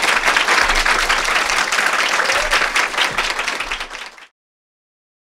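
Audience applauding, dense clapping from many hands, which cuts off suddenly about four seconds in.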